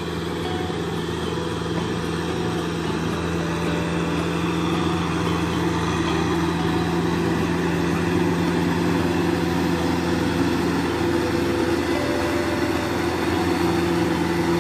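Kubota M6040SU tractor's diesel engine running steadily under load while tilling a flooded, muddy field, growing gradually louder as the tractor comes closer.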